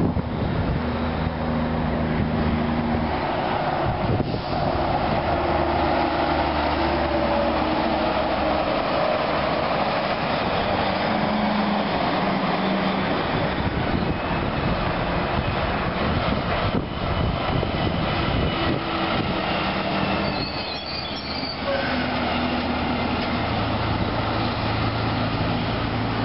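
A multi-trailer road train approaching and passing: its diesel engine runs under load while the tyres and trailers rumble on the road, with a steady engine tone that changes pitch in steps.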